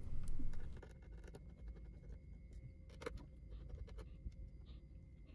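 Scattered light clicks and scrapes of a small screwdriver working out the screws that hold a laptop's LCD panel, a little louder in the first second, over faint room noise.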